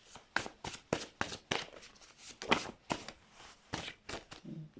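A deck of tarot cards shuffled by hand: a quick, regular run of papery snaps, about three a second, thinning out near the end.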